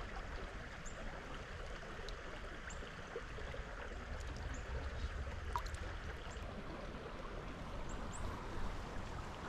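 Steady rush of a small stream's flowing water, with a few faint high ticks.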